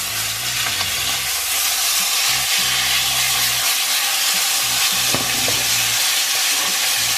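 Beef steak sizzling steadily as it sears in a stainless steel frying pan with garlic cloves.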